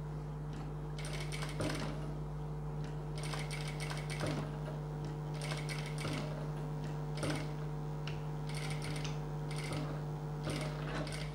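Jack industrial sewing machine stitching slowly in short runs of a few stitches, with brief pauses between runs as the fabric is turned around a small curved shape. A steady low hum runs underneath.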